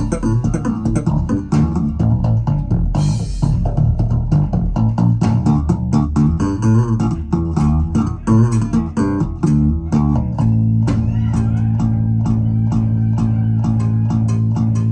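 Recorded music played back through Vandersteen 2Ce loudspeakers: a piece led by plucked bass and guitar. About ten seconds in, the bass settles into one steady held low note under a regular ticking beat.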